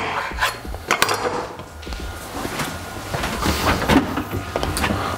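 Knife cutting on a wooden chopping board: a run of irregular sharp knocks.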